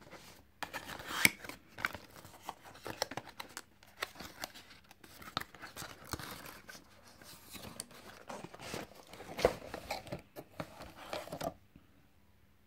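A cardboard cologne box being opened by hand: the box flaps and the cardboard insert holding the bottle scrape, rustle and click as they are pulled about, with a couple of sharp knocks. The handling stops about a second before the end.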